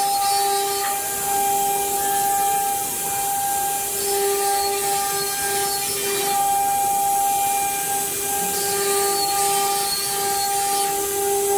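1325 CNC router's spindle cutting through a wooden panel for hollow ornaments: a steady whine with the hiss of the bit chewing wood, swelling and easing slightly as the cutter moves along its path.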